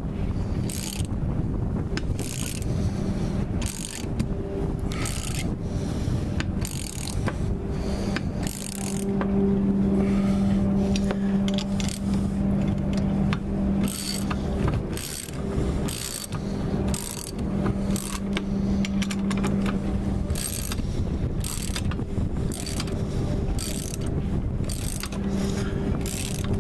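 Ratchet wrench clicking in short runs as it turns the nuts on the threaded rods of a homemade press, drawing a cutlass bearing into a propeller-shaft strut. A low steady hum comes and goes underneath.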